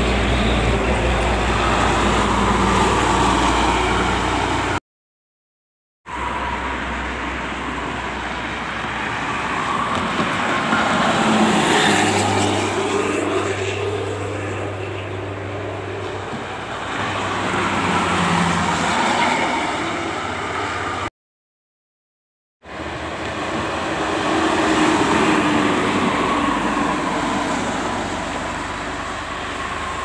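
Intercity coaches and other traffic passing on a highway: engine and tyre noise swells and fades with each pass. The sound cuts out abruptly twice, at about 5 seconds and about 21 seconds in.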